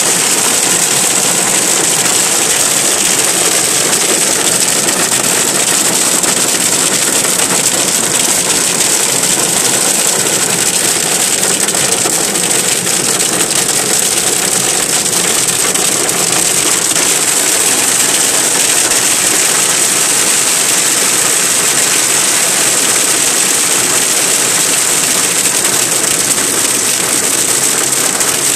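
Hail and heavy rain pelting a car's roof and windscreen, heard from inside the car as a loud, steady noise.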